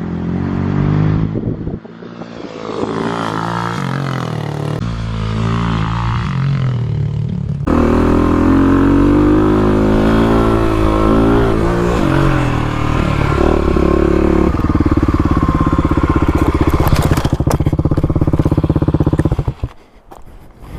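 Dirt bike engine accelerating hard in the lower gears, the revs climbing and dropping through gear changes, then held high and steady for several seconds before the throttle shuts off suddenly near the end.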